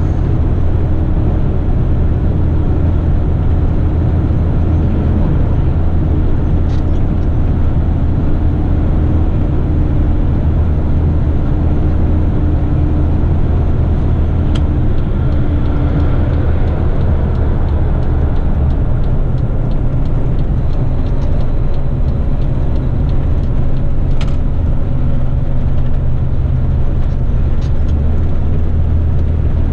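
Heavy rigid truck's diesel engine running steadily at highway speed, heard from inside the cab with tyre and road noise, and a few faint clicks.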